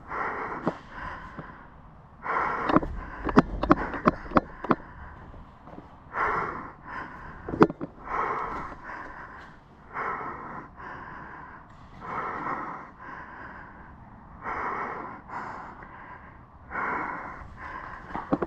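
A player's breathing close to the microphone, one breath about every two seconds. A quick cluster of sharp clicks comes a few seconds in, and one more follows a few seconds later.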